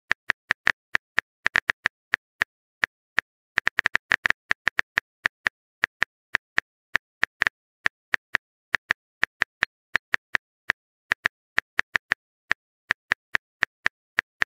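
Keyboard typing sound effect as a text message is typed: short, sharp key clicks at an irregular pace, a few a second and sometimes in quick clusters.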